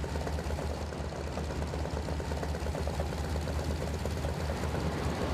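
Junkers Ju 52's three radial engines running steadily in flight, a deep, even drone.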